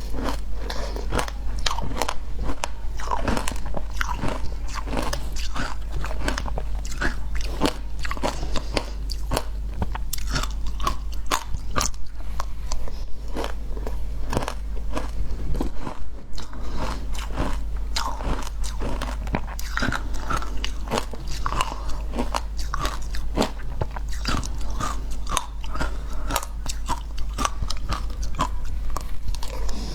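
Ice being bitten and chewed: a dense, continuous run of crisp crunches with no pauses.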